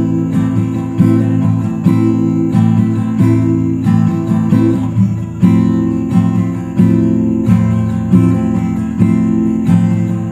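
Acoustic guitar strumming chords in a steady rhythm, each chord ringing on until the next stroke.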